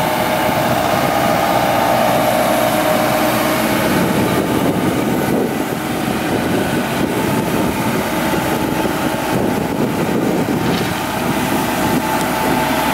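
Komatsu PC70 excavator's diesel engine running steadily under hydraulic load, with a steady tone over the engine noise.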